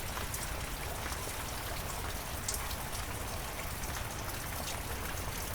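Heavy rain falling steadily, a dense even hiss with single drops ticking through it.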